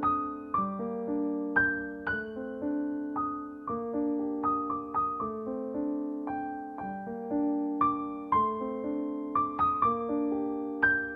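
Background music: a piano playing a slow melody of single struck notes, each ringing and fading before the next.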